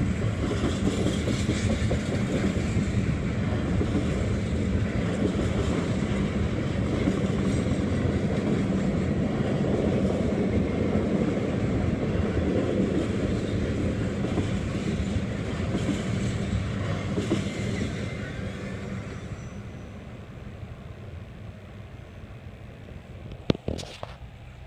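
Slow freight train of intermodal cars rolling past on the rails: a steady rumble with wheel clatter that fades as the train moves away, about eighteen seconds in. Two sharp clicks come near the end.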